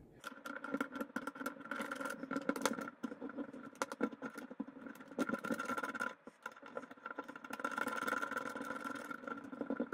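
Sped-up handling sounds: rapid small clicks and scrapes as a steel 14mm negative thread adapter is screwed onto an airsoft AK's outer barrel, over a steady high hum.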